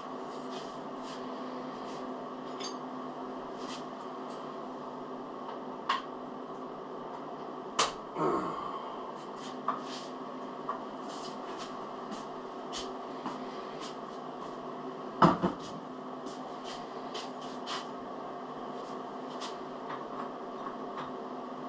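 Scattered light clicks and taps, with louder knocks about six, eight and fifteen seconds in, as a heavy milling head hanging from a shop crane is eased into position on its mount. A steady hum runs underneath.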